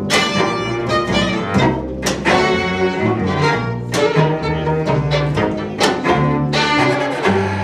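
Violin, viola, cello and double bass playing together as an acoustic string quartet, over a sustained low bass line, with sharp accented chords roughly once a second.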